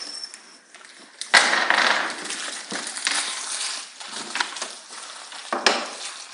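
Packet of roof screws being handled: a sharp crack about a second in, then about a second of plastic crinkling and small metal clinks, with scattered clicks and another sharp knock near the end.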